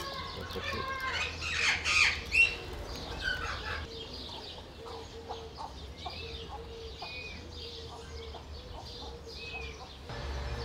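Birds calling, with a louder cluster of calls about two seconds in and short chirps scattered through the rest, over a steady low hum.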